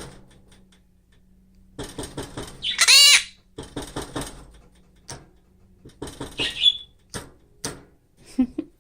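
Half-moon conure calling: one loud squawk with a wavering pitch about three seconds in and a shorter call about six and a half seconds in, among short bursts of rustling and fluttering and a few clicks.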